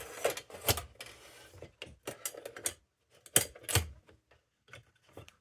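Sharp metallic clicks and knocks of a hot-blast kerosene lantern being handled as its glass globe is seated and the globe frame is raised and locked, coming at irregular intervals.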